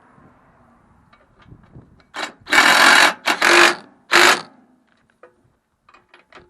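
Handheld power driver running in four short bursts, driving the cover plate's bolts home.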